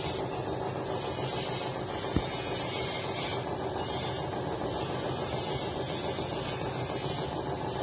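Drum-type poultry plucking machine running steadily, with a hiss of water spray from its hose; a single sharp click about two seconds in.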